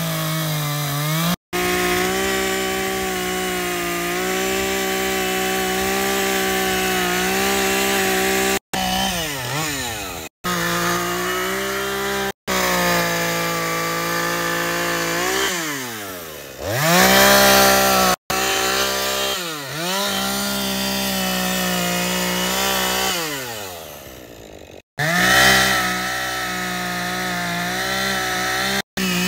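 Petrol chainsaw running at high revs while cutting into a wooden log. Several times the engine note sags in pitch and climbs back as the chain bites and frees, and the sound breaks off abruptly for an instant a few times.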